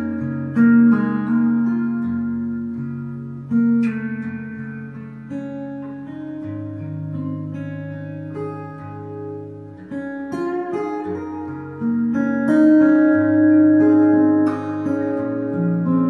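Fingerstyle acoustic guitar with a capo, a Gwood GMR-C played through a Sunrise S2+ soundhole pickup blended with a K&K Pure Mini into a Fishman Loudbox Mini amp: a picked melody over held bass notes, growing louder about three-quarters of the way through.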